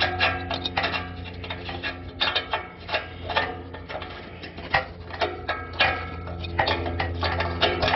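Irregular metallic clicking and ticking from a wrench turning an oxygen sensor out of the exhaust pipe, several clicks a second, over a low steady hum.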